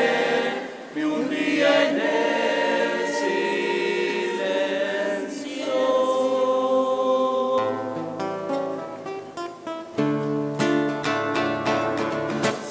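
Choir singing held chords that shift every second or two, with deeper voices entering about halfway through and a run of short, crisp accents near the end.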